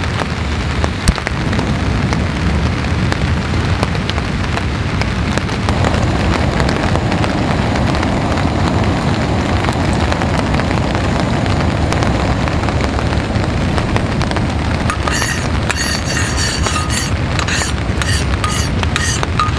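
Compact gas stove lit with a single click about a second in, then running steadily under a griddle plate, with light rain pattering.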